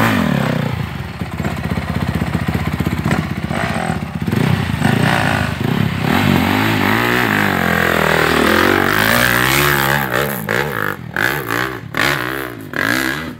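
Off-road dirt bike engine running and revving close by, its pitch rising and falling through the middle. Several sharp clattering knocks come near the end.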